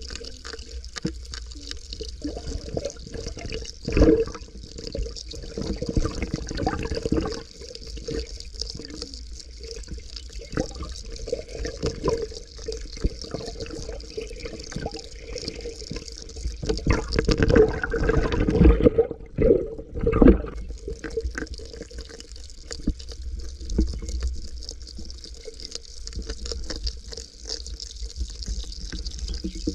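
Muffled water sloshing and bubbling around a camera held just under the water's surface, with irregular knocks from the camera being moved, loudest about four seconds in and again between roughly 17 and 21 seconds.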